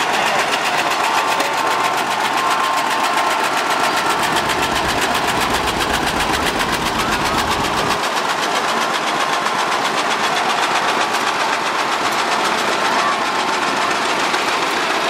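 Antique farm tractor engines, a John Deere and a Massey-Harris, running at slow parade pace with a steady, rapid exhaust beat. A deeper rumble swells in the middle as the John Deere passes close.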